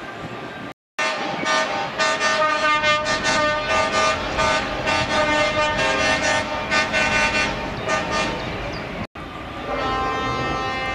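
Truck air horns sounding several tones at once: loud, rapidly repeated blasts for about eight seconds between two abrupt cuts, then a steady held horn chord.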